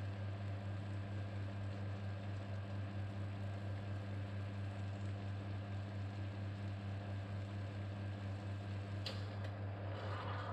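La Pavoni Vasari espresso machine's pump running steadily during a double-shot extraction: a constant low hum under a faint hiss. A sharp click comes about nine seconds in, and a short rush of hiss follows near the end.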